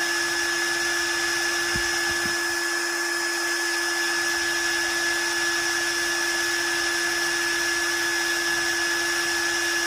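A steady, unchanging drone: held tones over an even hiss, which cuts off abruptly at the end.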